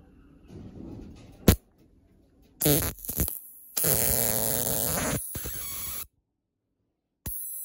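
High-voltage step-up transformer module arcing across the leads of a small LED: a loud crackling buzz in spurts, the longest lasting a little over two seconds. A single sharp click comes about a second and a half in, before the buzzing starts.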